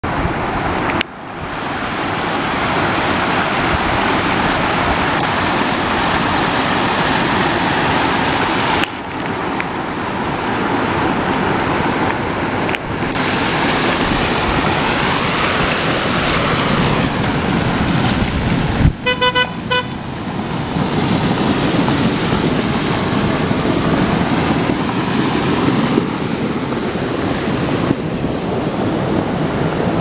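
Steady rushing of monsoon waterfall and stream water. About two-thirds of the way through, a vehicle horn gives a quick string of short toots.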